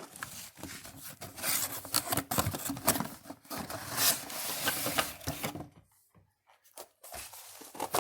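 Cardboard fireworks box being opened and its contents handled: scraping, rustling and tearing of cardboard for about six seconds, a brief pause, then more handling near the end.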